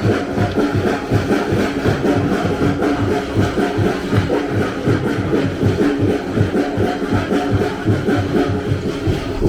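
Live drumming on a Pacific Island festival stage: a steady, fast beat of low drum strikes, about three a second, with a sustained tone held over it.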